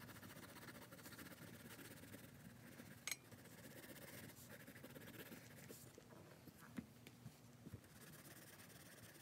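Near silence with faint scratching of a colored pencil on paper, and a single click about three seconds in.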